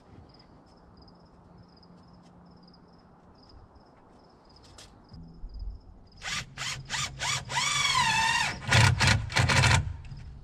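Cordless drill working into a wooden beam, starting about six seconds in: several short trigger pulls, then a longer run whose pitch dips and rises as it loads up, then a few more short bursts.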